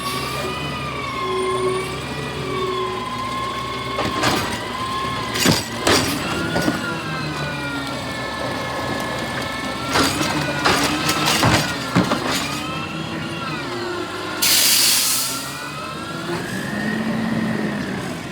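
Garbage truck working a route: its hydraulic whine wavers up and down in pitch, with several sharp knocks and bangs. A short burst of air hiss comes near the end.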